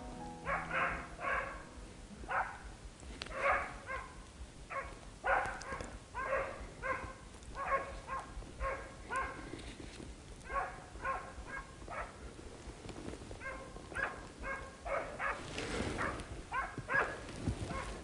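A hunting dog barking repeatedly, short barks in an irregular run of one to three a second, as it drives game through the forest. A brief rush of noise comes near the end.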